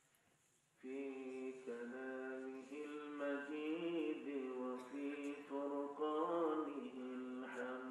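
A man's voice chanting Arabic in long, drawn-out melodic phrases, in the style of Quranic recitation, starting about a second in after a short pause.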